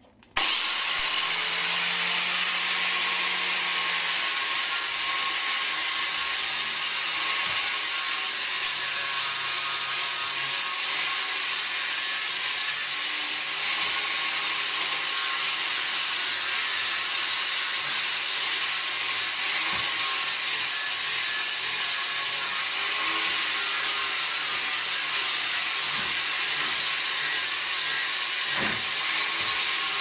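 Angle grinder running, a continuous grinding noise that starts abruptly and holds an even level.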